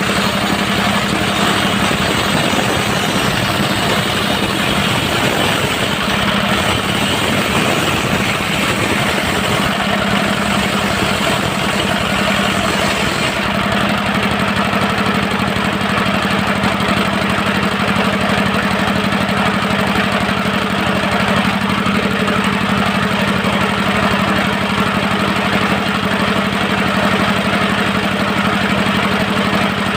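Diesel engine driving a circular sawmill blade, running steadily. About 13 seconds in, a higher hiss drops away and the engine note holds even.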